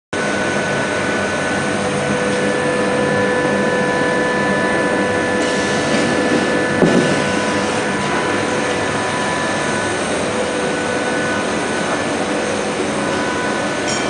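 Medium-frequency 160 kW induction forging furnace and its power cabinet running: a steady machine hum with several high, steady whining tones over it. A single short knock about seven seconds in.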